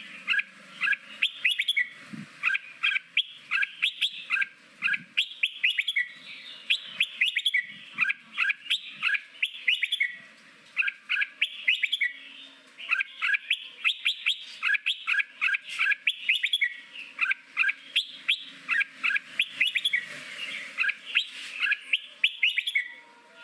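Red-whiskered bulbul singing: quick runs of short, bright chirping notes in bursts, broken by short pauses between phrases.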